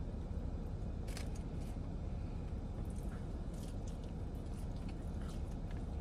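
Quiet eating sounds: a plastic fork picking through a tamale and soft chewing, with a few light clicks, over a steady low rumble inside a car cabin.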